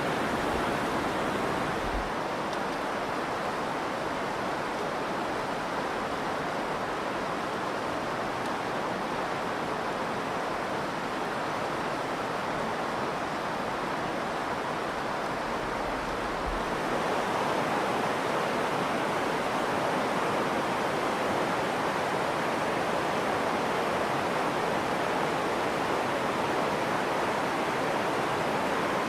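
Virgin River water rushing steadily over rocks, a dense even hiss of flowing water that grows slightly louder about halfway through.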